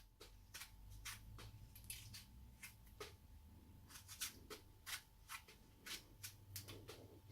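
Near silence with faint, scattered clicks and rustles of food being handled: a tomato being set onto a bowl of salad leaves.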